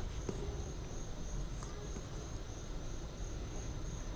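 Crickets chirping in a steady, high-pitched pulsing trill, over a low background rumble.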